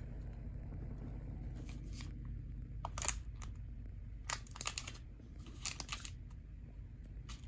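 Thin plastic packets crinkling in the hand in several short bursts: a sealed bag of earphones and a packet of earplugs being handled. A steady low hum runs underneath.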